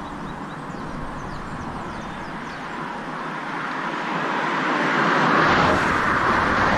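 Road traffic noise, with a vehicle approaching and passing close by. It grows louder from about halfway through and is loudest near the end.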